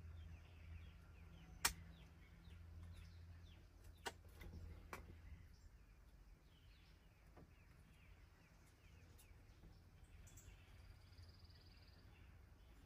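Faint clicks of a screwdriver and small screws as Phillips screws are worked out of a truck's gear shift knob, one sharp click about two seconds in and smaller ones a few seconds later. Faint bird chirps and a low steady hum underneath.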